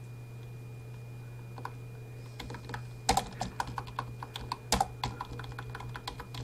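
Keystrokes on a computer keyboard while text is being edited: a few scattered clicks, then a quick run of typing from about three seconds in, over a steady low hum.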